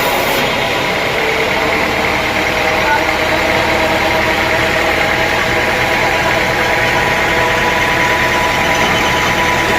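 Sawmill machinery running steadily: a continuous mechanical drone holding several steady tones.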